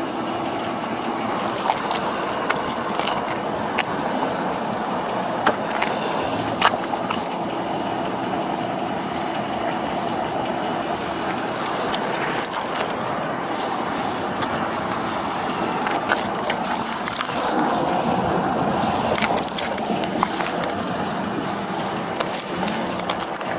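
Handling noise on a body-worn camera: clothing rubbing and rustling against the microphone, with metal jingling and sharp clicks from keys or cuffs, over a steady background hum. The clicks and rattles come thickest about two-thirds of the way in.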